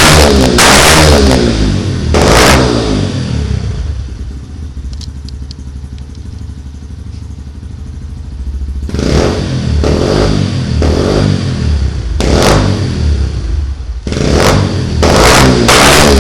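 Yamaha Factor 125 motorcycle's single-cylinder four-stroke engine being revved hard in repeated throttle blips, dropping back to a quieter idle for several seconds in the middle, then revved again.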